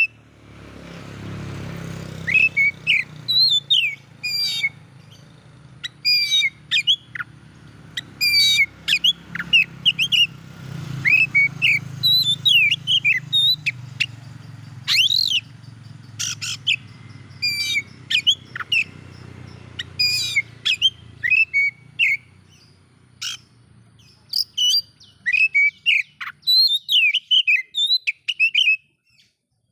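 Oriental magpie-robin (kacer) singing: a fast run of varied whistled notes and chirps in short phrases, with brief pauses between them. A low rumble runs underneath for roughly the first twenty seconds.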